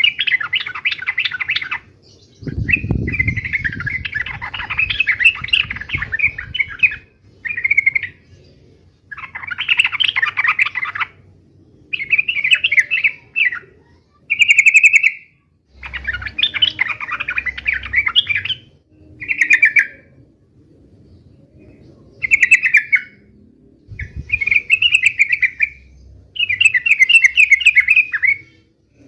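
Yellow-vented bulbul (trucuk) singing its combative 'uplik tarung' song: about eleven bursts of rapid, bubbly chattering phrases with short pauses between them. A faint low rumble sits under some of the phrases.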